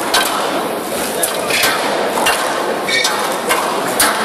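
Squash rally: the ball struck by racquets and smacking off the court walls in a string of sharp knocks at an uneven pace, with crowd chatter all through.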